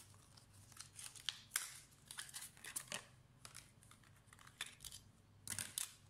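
Paper and clear plastic packaging crinkling and crackling as a laptop RAM module is unwrapped from its sleeve and clamshell: a run of short, irregular crackles and clicks, loudest in a cluster near the end.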